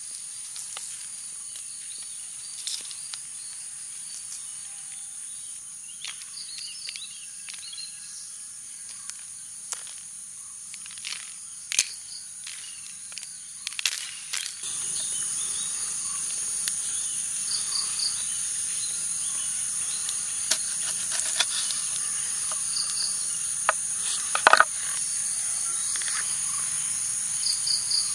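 Steady high-pitched insect chorus with a few short bird chirps and scattered sharp clicks and taps. The chorus grows louder about halfway through.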